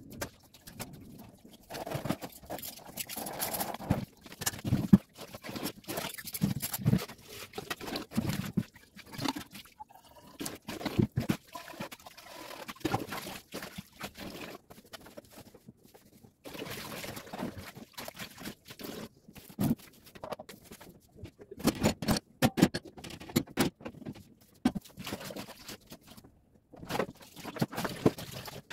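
Dishes being washed by hand in a stainless steel kitchen sink: plastic and metal items knocking and clattering irregularly, with tap water running and splashing at times.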